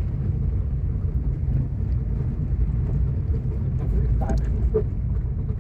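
Car driving on a packed dirt road: a steady low rumble of engine and tyres.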